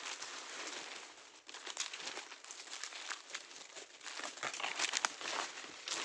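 Dry bamboo leaves and twigs crunching and rustling underfoot and under hand as someone moves through thick leaf litter and crouches in it: a dense run of small crackles.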